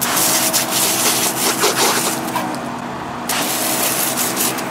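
Sisun portable pressure washer's little pump running with a steady hum while its water jet hisses and rasps against a muddy boot. The spray noise drops back about three seconds in, leaving mostly the pump hum.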